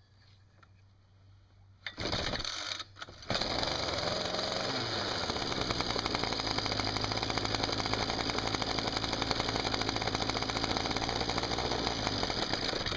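Ryobi BC30 two-stroke trimmer engine starting about two seconds in, stumbling briefly, then running steadily while its carburetor's mixture screw is turned. It stops suddenly near the end, with the mixture set too lean.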